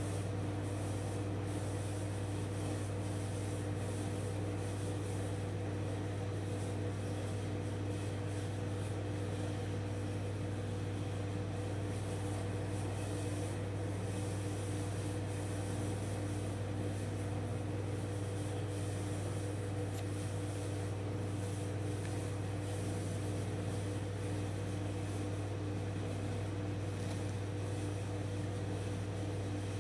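Steady low hum with a few fainter tones above it and a hiss, the even sound of a running machine or appliance such as a fan.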